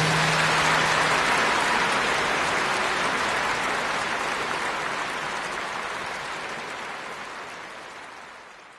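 Concert audience applauding, with the last low held note of the music dying away about a second in; the applause fades out gradually.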